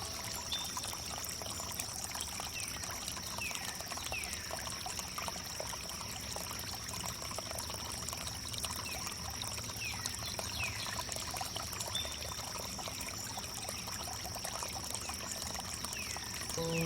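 Water pouring and trickling steadily over wood. A steady high whine runs under it, and a few short falling chirps come every few seconds.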